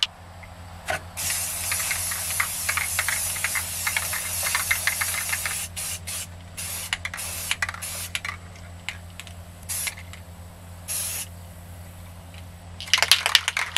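Aerosol can of Rust-Oleum camouflage spray paint spraying a base coat: one long hiss of about four seconds starting about a second in, then several short bursts.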